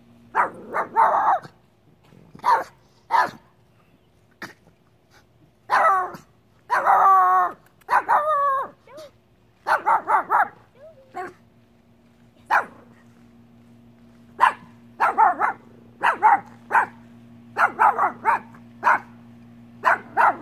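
A dog barking repeatedly in short, sharp barks and yips, with a longer wavering, whine-like call about six to eight seconds in.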